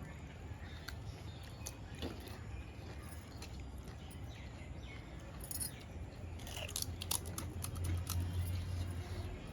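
Panipuri being eaten: scattered small crunches and clicks as the crisp puri shells are bitten and chewed. The crunching is busier in the second half.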